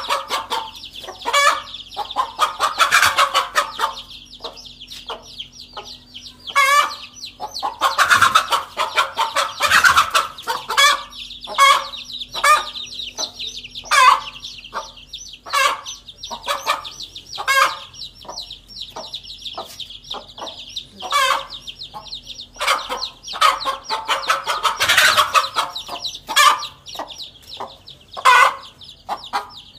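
Hen clucking repeatedly with several loud, drawn-out squawks, her alarm at a snake close by. A continuous high peeping from a chick runs underneath.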